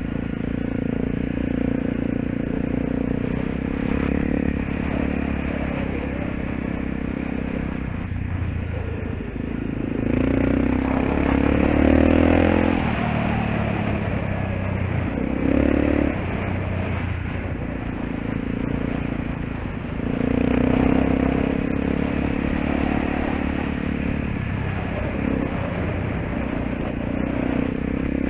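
Single-cylinder Honda dirt bike engine running under way, revving up and down with the throttle, with louder pulls about ten seconds in, briefly around sixteen seconds, and again about twenty seconds in.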